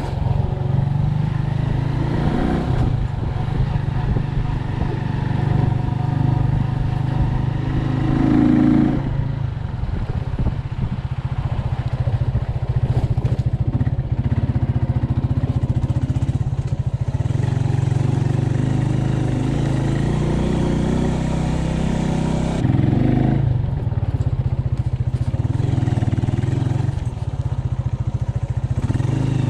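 Small motorcycle's engine running steadily at low speed on a rough dirt track, heard from the rider's seat. The engine note shifts up and down a few times.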